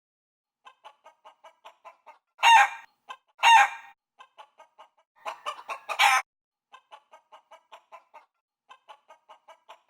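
Chicken clucking in a quick run of short, evenly spaced clucks, about three or four a second, broken by two loud calls about two and a half and three and a half seconds in and a louder burst of calls around five to six seconds.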